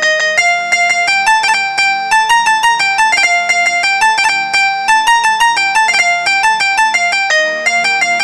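Roland Fantom 06 synthesizer playing a plucked-string patch: a quick melody of short plucked notes over a held drone chord, the chord changing near the end.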